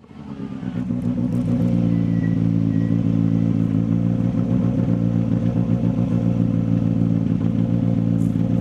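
A vehicle engine running steadily at a constant speed with a fast, even pulse. It fades in over the first second or so.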